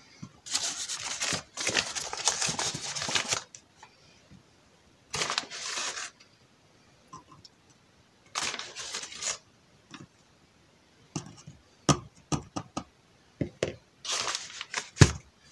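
Rustling, crinkling bag of wheat flour being handled as a half part is measured out, in several bursts of a second or more, with a run of light clicks and knocks from a small plastic measuring pot being set down about two thirds of the way through.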